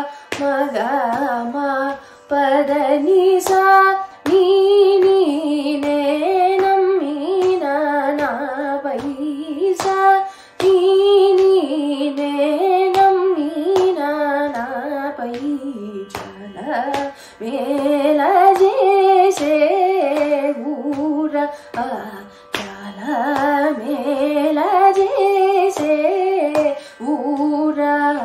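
Solo female Carnatic vocal singing a varnam in Panthuvarali raga: long sung phrases with quick oscillating ornaments on each note, broken by brief breaths, over a faint steady drone.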